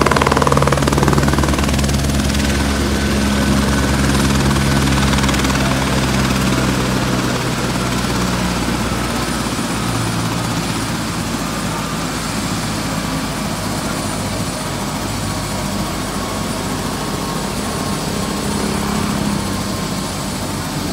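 Airbus AS350 Écureuil helicopter running on the ground with its rotor turning: a steady turbine whine over the low beat of the main rotor. The low rotor beat eases off somewhat about nine seconds in.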